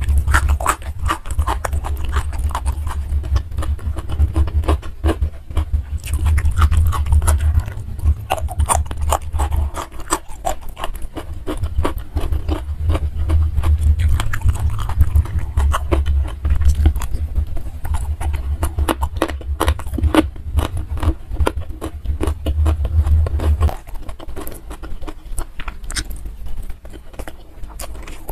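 Close-miked chewing and mouth sounds of a person eating rice, fried tofu and sambal by hand, a steady run of many quick clicks. A low rumble underneath stops a few seconds before the end.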